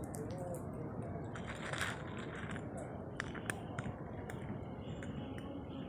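A cat crunching dry kibble: a run of sharp crunches and clicks that starts about a second and a half in, over steady low background noise.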